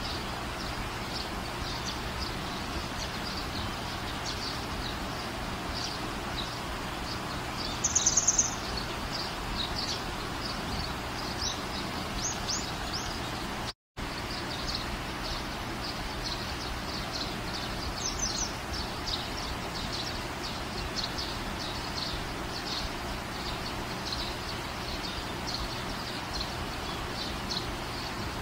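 Steady background noise with many small bird chirps throughout. About eight seconds in comes a louder burst of rapid chirping, and about halfway through the sound cuts out for an instant.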